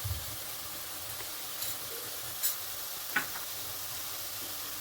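Browned onions sizzling steadily in hot oil in a pan, with a few light clicks near the middle.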